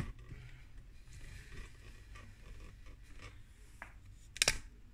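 Faint rubbing and scraping of things being handled, with a few small knocks and one sharp click about four and a half seconds in.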